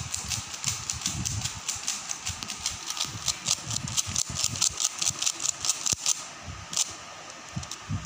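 A 3x3 Rubik's cube being turned fast by hand during a solve: rapid plastic clicking as the layers turn, several clicks a second. The clicks thin to a few single ones about six seconds in.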